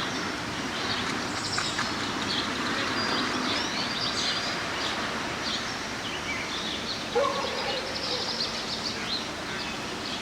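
A chorus of small birds chirping and singing over a steady outdoor background noise, with one short, louder, lower-pitched call about seven seconds in.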